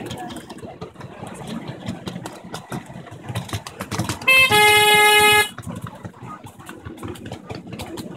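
A miniature railway locomotive's horn sounding one single-pitched toot of about a second, about halfway through, over the rumble and clatter of the train running on the track.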